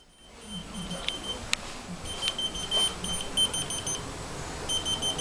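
Whistle-activated key-finder keychain beeping in reply to a whistle: a run of short, high beeps at one steady pitch, coming in quick groups.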